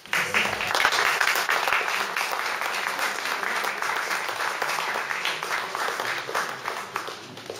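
Audience applauding: many hands clapping, starting abruptly and slowly dying down near the end.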